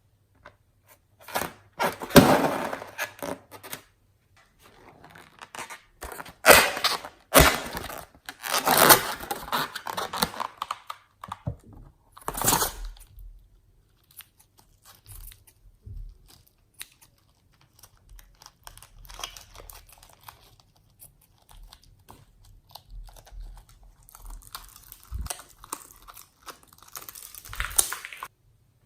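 Slime being squeezed and worked by hand, giving irregular crackly, crunchy squishes in bursts with short pauses between.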